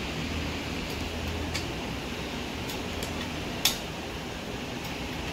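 A few sharp metallic clicks and clinks of hand tools on engine parts, the loudest about three and a half seconds in, over a steady low hum.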